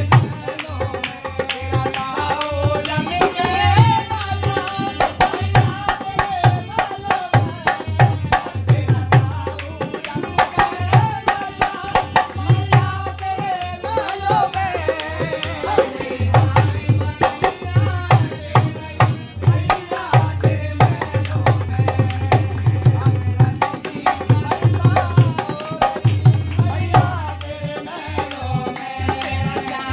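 Live Indian folk music: a dholak drum beating a steady rhythm under a harmonium, with a voice singing the melody.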